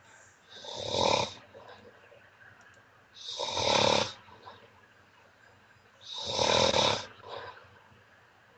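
A sleeping man snoring over a Skype call: three loud snores, each about a second long, about three seconds apart.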